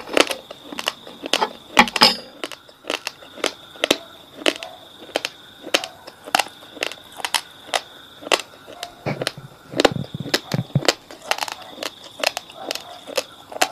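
Raw basmati rice, chilled in the fridge, being chewed close to the microphone: a run of sharp, hard crunches, about two to three a second, as the dry grains crack between the teeth.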